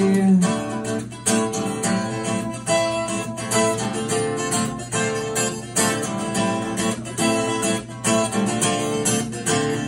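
Acoustic guitar strummed in a steady rhythm through an instrumental break between sung lines. A held sung note trails off about half a second in.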